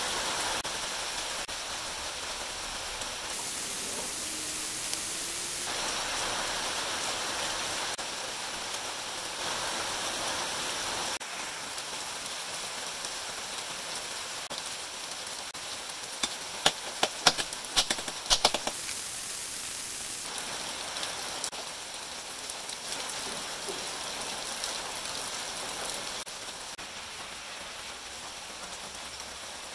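A steady hiss that steps up and down in level every few seconds. About two-thirds of the way in comes a quick run of sharp clicks and clinks: metal engine parts knocking together as a motorcycle engine is taken apart by hand.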